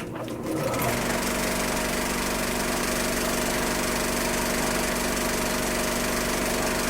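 A small engine or motor running steadily at an even pitch, starting abruptly with a sharp click.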